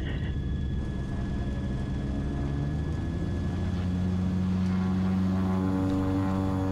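Cessna 340's twin turbocharged six-cylinder piston engines running at low power on the ground, a steady drone whose note shifts and grows a little stronger about four seconds in.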